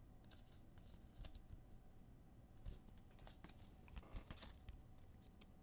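Near silence with faint scattered clicks and rustles of trading cards being handled.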